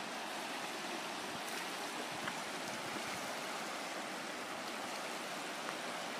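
Steady rush of a shallow, rocky river flowing over rapids.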